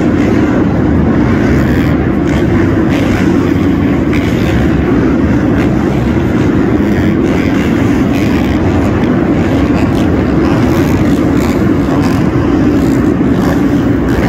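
Supercross dirt bikes running on the track during practice, a loud, steady drone of motorcycle engines.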